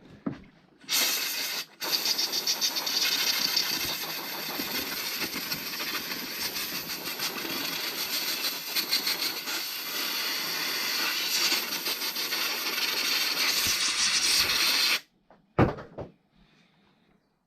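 Long continuous hiss of a pressurised jet used to clean dirty parts. It starts about a second in, breaks off briefly, then runs steadily until it cuts off sharply near the end, followed by a single knock.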